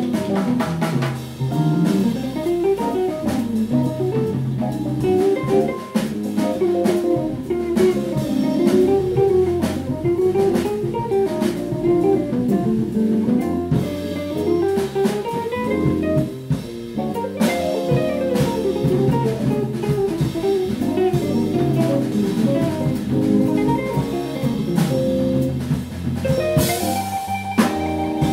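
Jazz guitar solo on an archtop hollow-body electric guitar, fast single-note runs climbing and falling, over electric bass and drum kit. A wash of cymbals swells near the end.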